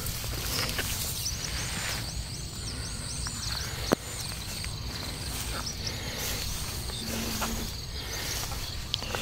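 Runs of rapid high-pitched chirps from a small animal, about four a second, heard twice, over a steady low rumble, with one sharp click about four seconds in.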